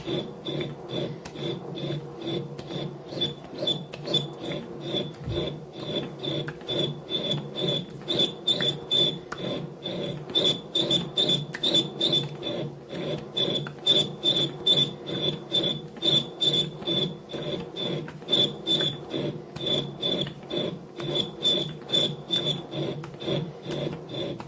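Boring bar cutting a cast iron pulley on a hand-turned metal lathe, chattering with a high squeal in regular rhythmic pulses as the chuck is turned by hand. The bar is oversized and above centre height, so it chatters rather than cutting cleanly.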